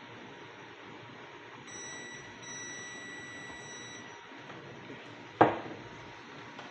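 Multimeter continuity beeper sounding: a short high beep, then a steady one of about a second and a half, the tone that signals a closed circuit. About five seconds in comes a single sharp knock, the loudest sound.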